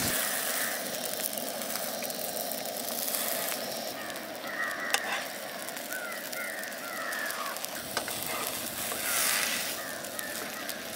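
Sandwiches sizzling in a hot nonstick pan as a steady hiss, with a few light clicks of a metal spatula and knife as they are turned over. A bird calls repeatedly in the background midway through.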